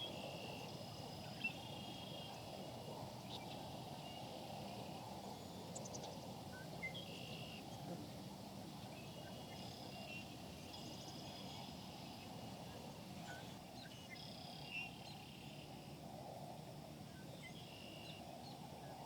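Outdoor ambience: a steady low rush with many short high-pitched chirps and calls scattered throughout, and a couple of faint sharp clicks.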